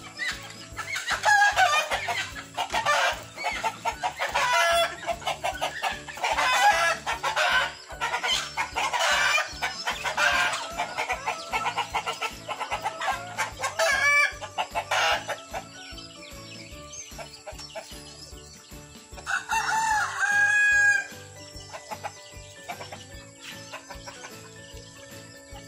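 Free-range chickens calling loudly in repeated bouts over the first fifteen seconds or so. A rooster crows once about twenty seconds in, one long call.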